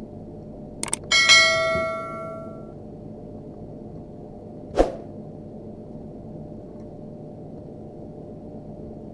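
A metal hand tool knocked or set down with a clang that rings for about a second and a half, right after two quick clicks; one more sharp click comes a few seconds later.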